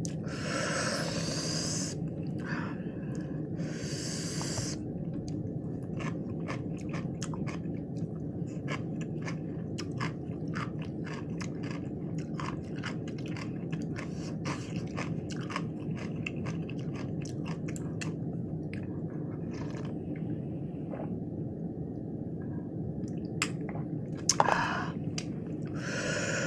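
Close chewing of crunchy lettuce wraps with cucumber and pepper: many sharp crunches one after another over a steady low hum, with two short hissy bursts in the first five seconds and again near the end.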